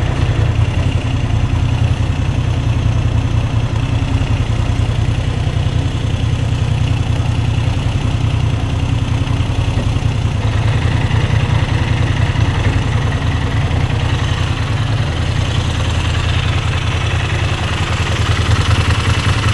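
Moto Guzzi V7 III's air-cooled transverse V-twin idling steadily in neutral, warm after a long ride.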